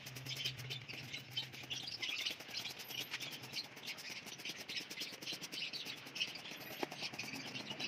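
Hand-held garden sprayer misting treatment onto the leaves of diseased plants, a rough, irregular hissing and rustling, with small birds chirping throughout.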